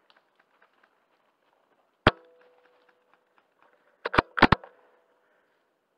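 A CO2-powered Wolverine Bolt-M airsoft bolt-action rifle fires once with a sharp crack and a short ring about two seconds in. About two seconds later the bolt is worked back and forward in a quick run of metallic clicks to chamber the next BB.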